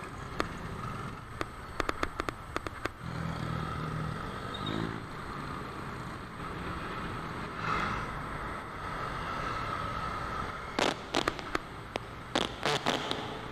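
Street traffic and road noise from a bicycle ride through city traffic, with a passing engine hum about three seconds in. Sharp clicks and rattles come in clusters, a few early and more near the end.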